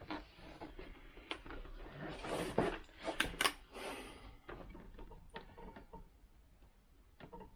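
Hands handling a plastic camera mount against a motorcycle helmet shell: rustling with light clicks and knocks, busiest and loudest around the middle, where two sharper taps come close together.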